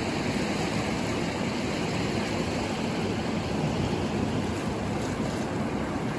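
Ocean surf washing onto the shore, a steady rush of noise.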